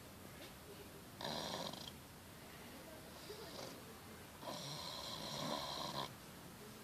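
Pot-bellied pig snoring in its sleep. A short snore comes about a second in, then a longer one of nearly two seconds midway, with fainter breaths between.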